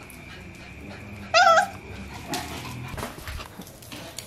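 A beagle puppy gives one short, high-pitched yip, its pitch wavering, about a second and a half in.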